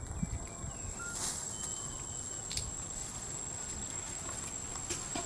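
Outdoor ambience: a steady, high-pitched insect drone runs throughout, over a low rumble, with a few faint clicks and a couple of brief chirps.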